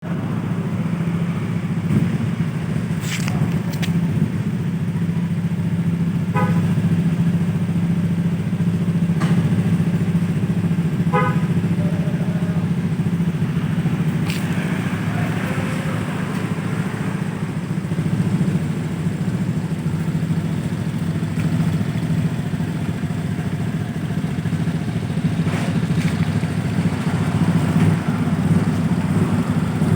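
Honda Scoopy scooter's single-cylinder engine idling steadily while warming up. A few sharp clicks and two short beeps are heard over it.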